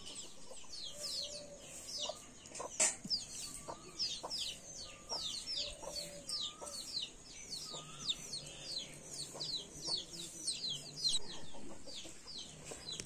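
Chickens clucking, over a constant run of high, falling peeps, several a second. One sharp knock comes about three seconds in.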